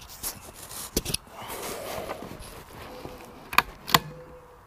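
Sharp metallic clicks from a Savage Mark II bolt-action .22 rifle being handled: magazine and bolt being worked. A few light clicks come early, then two louder ones close together near the end.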